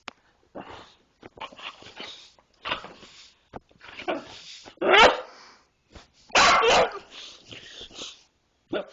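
A pet's agitated yelps and barks in a string of short outbursts, some rising in pitch, the loudest about five seconds in and another loud one about a second and a half later; the animal flips out at a dog training whistle that hurts its ears.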